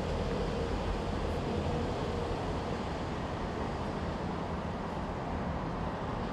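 Steady low rumble of outdoor background noise, with a faint hum in the first couple of seconds and no distinct events.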